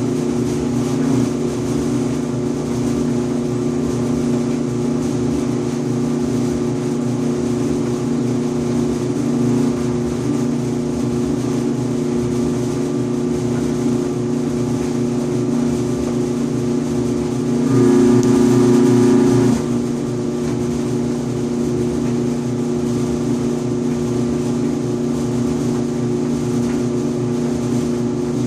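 An Electrolux EIED55H electric clothes dryer runs with a steady hum. About two-thirds of the way through, a louder buzz sets in for about two seconds and then drops back. This recurring buzz and vibration was caused by a failing blower assembly.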